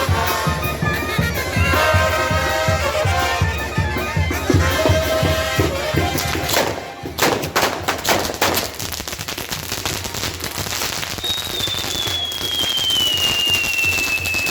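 Brass band music with a steady beat, cut across about seven seconds in by a quick string of firecracker bangs. After that comes a steady crackling hiss, and near the end a long whistle gliding slowly down in pitch.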